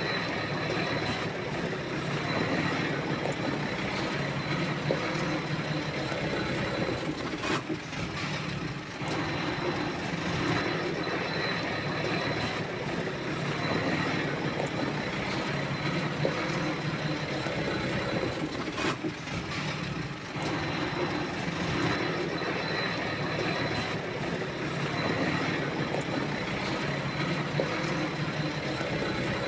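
Diesel engine of heavy earthmoving machinery running steadily, with brief sharp clicks about a third of the way in and again about two thirds of the way in.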